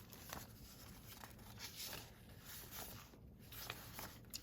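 Faint rustling and soft ticks of craft paper pieces being handled and shuffled.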